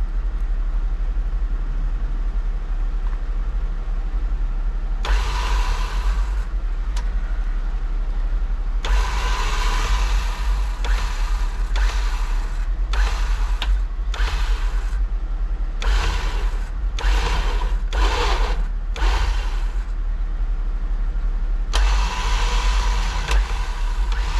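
A vehicle engine running with a steady low rumble, with repeated louder bursts of noise that each last one to three seconds.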